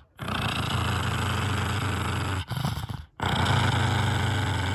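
Pug growling over a dried bone chew in two long, continuous growls broken by a short pause about two and a half seconds in. This is resource guarding, set off by an attempt to take the chew away.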